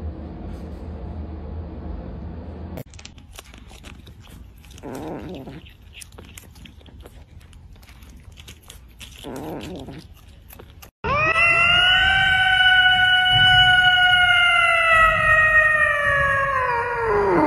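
A cat yowling into a microphone: one long, loud, drawn-out call of about seven seconds that starts about eleven seconds in and sags in pitch at the end. Before it, faint crunching clicks of a cat biting into lettuce leaves, with two short cat sounds.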